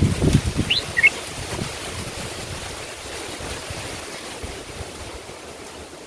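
Wind buffeting the microphone, rumbling at the start and settling into a steady rushing hiss that slowly fades. About a second in, a bird gives two or three short, high chirps, one rising.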